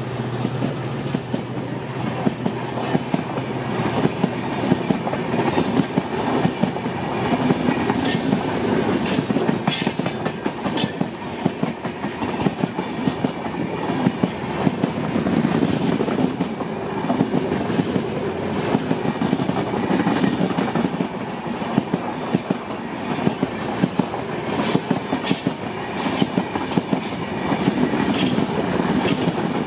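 Passenger coaches of a long train rushing past close by at speed: a steady rolling rumble of steel wheels on rail, broken by many sharp clicks and clatters as the wheels run over rail joints.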